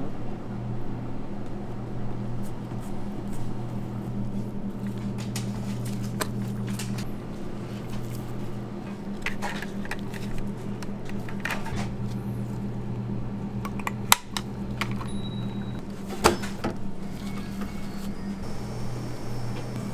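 Steady hum of kitchen machinery with scattered soft clicks and knocks of food prep as blocks of canned ham are cut by knife and pushed through a plastic wire slicer. Two sharp clicks stand out in the second half.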